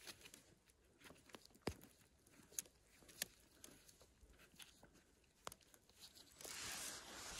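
A small knife scraping and trimming the stem of a freshly picked bolete mushroom: faint scattered scrapes and clicks, then a longer rustle near the end.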